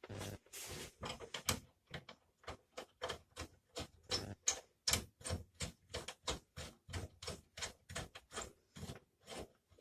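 Ratchet wrench clicking at a quick, even rhythm, about four clicks a second, as a small bolt is tightened through the bus door's latch and handle to lock it. A short scraping rustle comes first.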